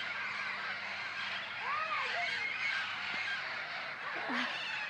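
A flock of parrots squawking, many calls overlapping into a dense chatter, with a few single screeches standing out, about two seconds in and again near the end.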